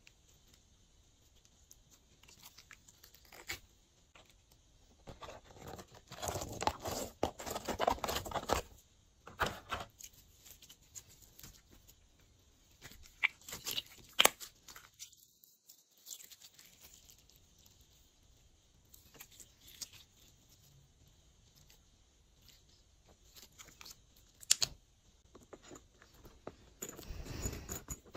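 Glossy slime being squished and stretched by hand: bursts of sticky crackling and clicking pops, a few seconds at a time, with quiet pauses between.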